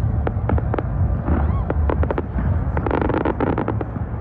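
Aerial fireworks going off overhead in a rapid, irregular string of sharp bangs and crackles, over a steady low rumble.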